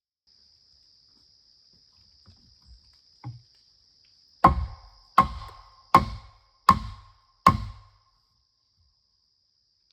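Five sharp blows of a metal tool, evenly spaced about three-quarters of a second apart, each with a short metallic ring, after a few faint knocks. A faint steady high-pitched whine runs underneath.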